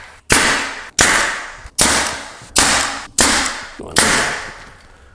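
Pneumatic brad nailer firing six times, about one shot every three-quarters of a second, driving brad nails into a wooden jamb extension. Each shot is a sharp crack that trails off over about half a second.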